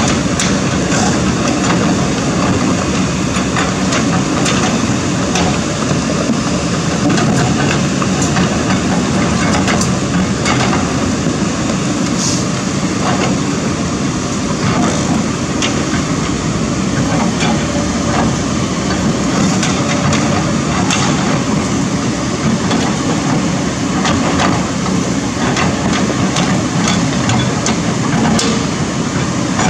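Kobelco SK200 excavator's diesel engine running steadily under work while its bucket scrapes the dirt slope and knocks against stones, giving frequent clacks and knocks over the engine noise.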